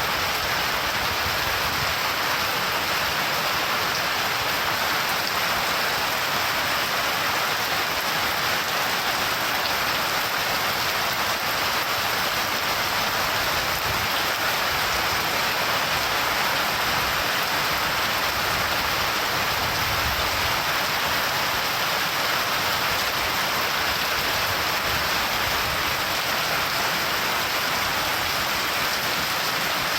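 Steady heavy rain pouring down and pattering on surfaces, an even continuous hiss with no breaks.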